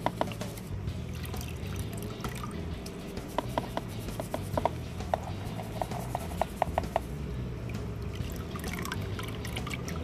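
Water sloshing and rubbing as stripped, formerly gold-plated scrap is sifted through water in a colander, with a run of light clinks in the middle.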